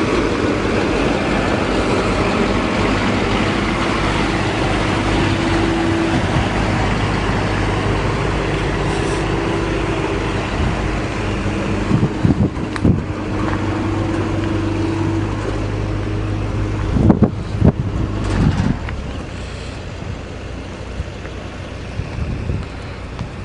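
A car's engine running with road noise, a steady hum that eases off near the end. There are a few knocks and bumps about halfway through and again a little later.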